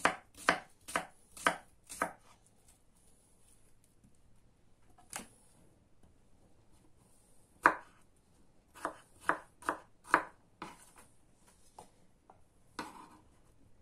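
Kitchen knife cutting a peeled fresh cucumber on a wooden cutting board, the blade knocking on the board about twice a second. After a pause with a single cut, a second run of quicker cuts follows as the slices are diced into cubes.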